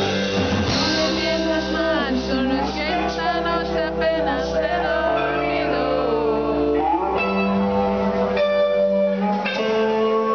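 Live rock band playing the closing bars of a song: electric guitars hold long notes, some of them bending in pitch, over a low bass that drops out about nine seconds in.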